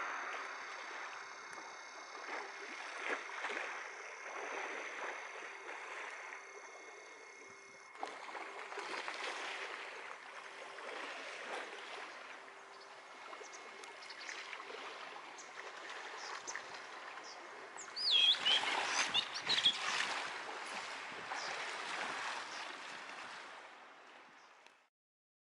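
Outdoor ambience: a steady wash of background noise, with a quick run of high bird chirps about eighteen seconds in. The sound fades out near the end.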